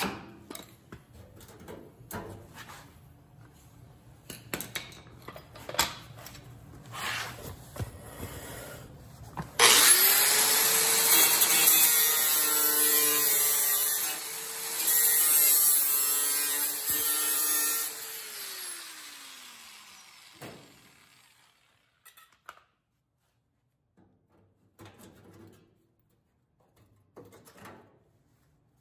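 An angle grinder with a thin cutoff disc spins up about ten seconds in and cuts through the rusted sheet steel of a 1930 Ford Model A roadster's lower body for about eight seconds. It is then switched off, and its whine falls away as the disc winds down. Before it there are a few light knocks and scrapes of handling the metal, and a few faint knocks follow near the end.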